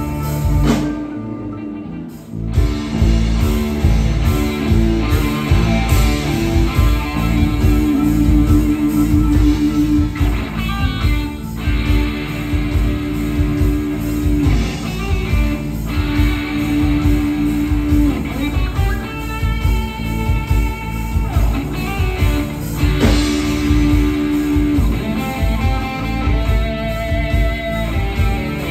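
Live four-piece rock band playing, with electric guitar out front over bass guitar, drums and keyboard. About a second in the band briefly drops back, and it comes back in together about two seconds later.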